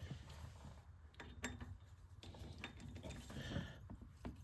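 Ratcheting torque wrench being worked on a taper-lock hub's bolts, with scattered metallic clicks of the ratchet and a few sharper ticks as the bolts are drawn up.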